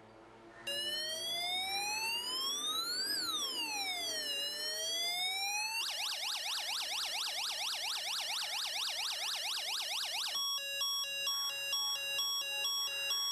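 A UM3561 siren-generator IC driving a small dynamic speaker, switched on about a second in and stepping through its siren tunes. First comes a slow rising and falling buzzy wail. About six seconds in it changes to a fast up-and-down warble, and about ten seconds in to a two-tone hi-lo alternation.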